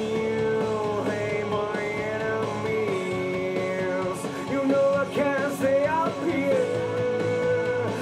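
Rock song playing back: a full band mix with a sustained lead melody that holds notes and slides between them.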